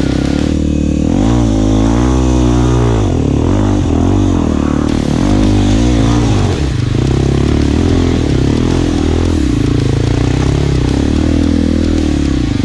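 Dirt bike's single-cylinder four-stroke engine under way on a trail, the revs rising and falling over and over in the first half, then running steadier.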